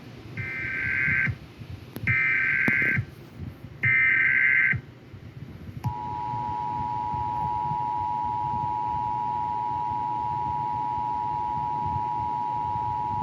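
Emergency Alert System broadcast opening: three short bursts of SAME header data tones, about a second each, then, about six seconds in, the steady two-tone EAS attention signal (853 and 960 Hz) begins and holds.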